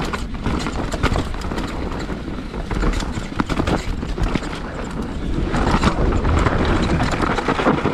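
Scott Gambler downhill mountain bike rattling and clattering as it rolls fast over dirt and rock slabs, with the tyres rumbling on the ground, louder in the last couple of seconds. The bike is being ridden on a tyre that is going flat.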